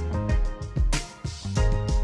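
Background music with a steady drum beat and a bass line.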